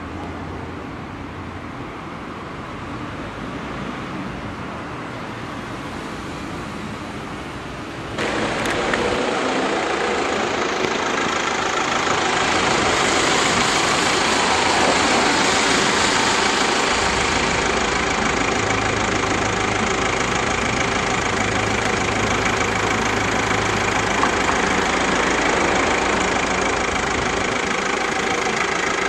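Street traffic noise at a signalled junction, with a motor vehicle's engine idling. It gets suddenly louder and fuller about eight seconds in.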